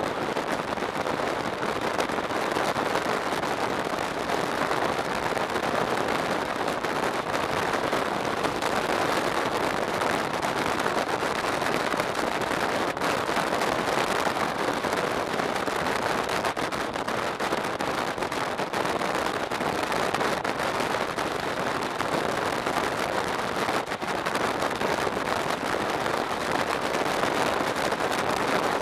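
Steady rush of wind and road noise from a motorcycle riding at highway speed, picked up by a camera mounted on the bike, with the wind buffeting its microphone.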